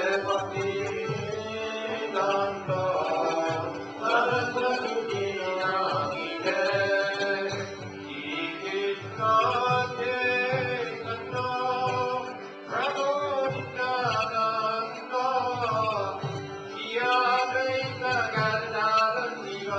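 Devotional kirtan chanting sung over a steady drone, with a regular low beat underneath.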